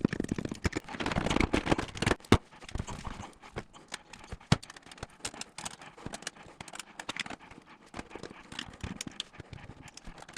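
Irregular clicks, taps and knocks of hands handling the dishwasher and its parts, busiest in the first two seconds, with two sharper knocks at about two and four and a half seconds.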